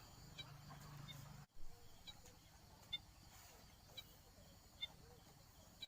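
Near silence outdoors, with faint, short high bird chirps about once a second.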